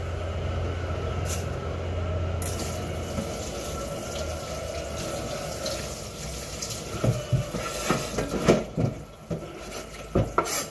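Kitchen tap running into a stainless steel sink during dishwashing. From about seven seconds in, dishes and a knife clatter against the sink.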